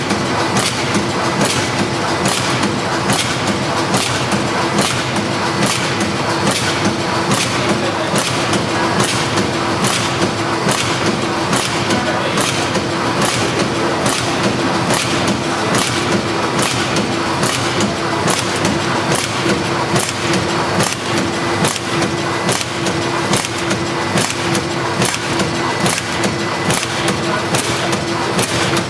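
Automatic horizontal powder and liquid sachet filling and packaging machine running under test: a steady mechanical hum with a regular clacking, about two strokes a second, as it cycles.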